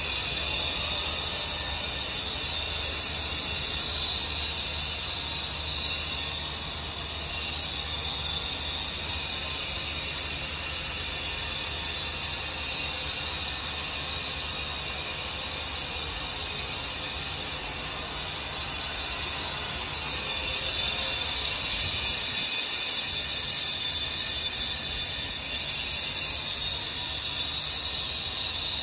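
Steady, loud industrial hissing with a low hum underneath, the continuous noise of a gas processing plant's equipment and pipework.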